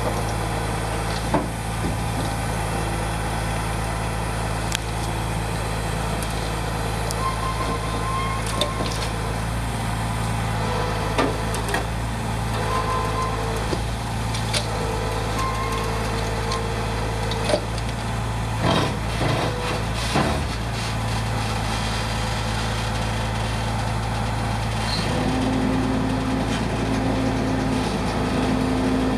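Heavy tri-axle tow truck's diesel engine running at a steady idle, with occasional sharp knocks and clanks.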